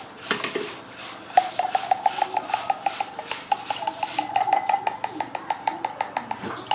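A spoon clinking quickly and rhythmically against kitchenware, about five strikes a second with a short ringing tone, starting about a second and a half in.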